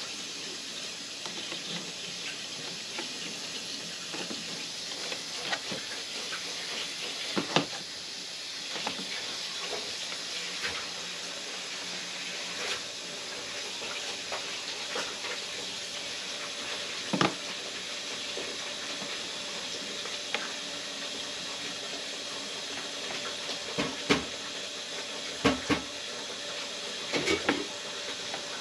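Plastic Lego Technic pieces clicking and tapping as they are handled and pressed together, a scattering of short sharp clicks with a louder one about seven seconds in, another near seventeen seconds, and several close together near the end, over a steady background hiss.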